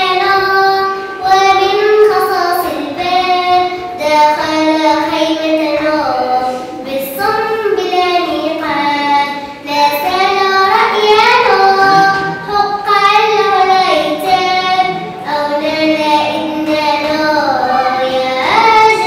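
A young girl singing a solo melody, holding long notes and sliding between them. Only her single voice is heard, with no accompaniment.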